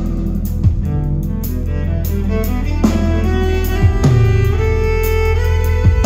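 Live band music with no vocals: sustained string-like held notes over a deep bass, punctuated by a few heavy drum hits.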